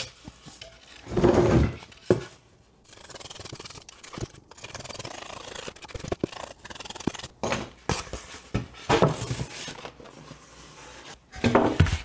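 Utility knife carving thin strips off a styrofoam (expanded polystyrene) lid: repeated rough scraping and squeaking strokes of the blade through the foam. Foam pieces rub together and knock lightly on the wooden bench.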